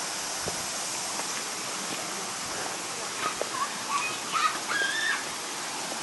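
Steady rush of a shallow mountain stream flowing over rocks. Over it, a few short pitched voice calls or shouts come in the second half.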